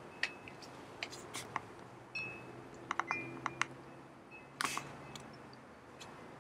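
Buttons on a handheld remote being pressed one after another in irregular clicks, a few followed by a short high beep, as a long code is keyed in.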